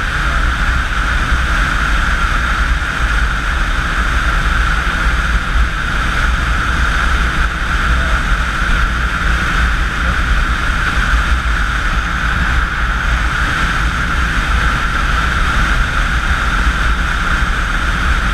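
Motorcycle cruising steadily at highway speed: engine drone and a constant rush of wind over the bike-mounted camera, unchanging throughout.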